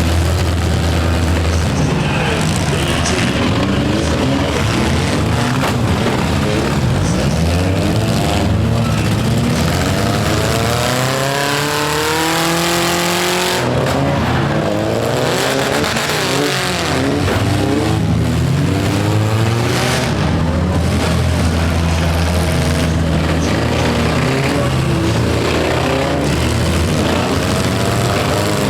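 Several four-cylinder demolition derby cars' engines revving and running at once, their pitch rising and falling constantly as they accelerate and back off.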